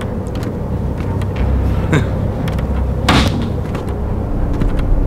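A steady low rumble with a faint hum above it, and one short, noisy hit about three seconds in.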